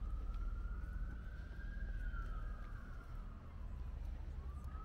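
Emergency vehicle siren in a slow wail: the pitch rises for about two seconds, falls away, then starts rising again near the end. A steady low rumble runs underneath.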